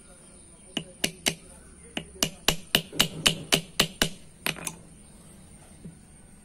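A small hammer tapping rivets to fix a lining onto a brake shoe: about fourteen sharp metallic taps, roughly four a second, with short breaks between runs, stopping about two-thirds of the way through.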